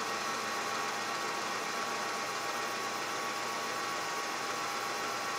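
Metal lathe running steadily during a facing pass, the tool cutting across the end of the spinning workpiece: an even machine hum with a steady high whine.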